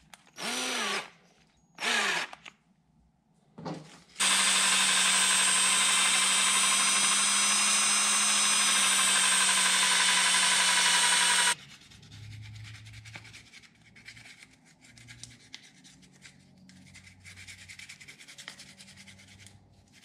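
Cordless drill spun up in two short bursts, then run steadily for about seven seconds while sandpaper is held against a small part spinning in its chuck, the drill used as a makeshift lathe. It cuts off suddenly, and quieter scratching of sandpaper rubbed by hand follows.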